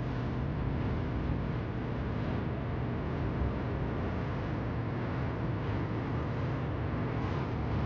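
Boat engine running steadily, a constant low hum under a wash of wind and water noise.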